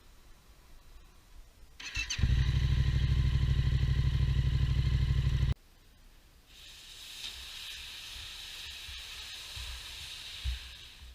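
Motorcycle engine running loud and steady for about three and a half seconds with an even pulsing beat, then cut off abruptly. A quieter steady hiss follows.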